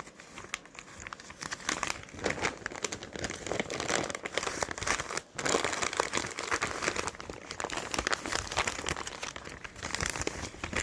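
Plastic vacuum-sealer bag crinkling as it is handled, a dense run of irregular crackles.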